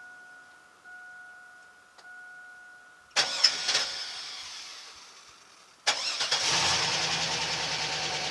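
2001 Chevy Silverado's dashboard warning chime ringing about once a second, then the starter cranks briefly about three seconds in. A second crank near six seconds catches, and the engine settles into a steady idle: it starts on the newly replaced fuel pump.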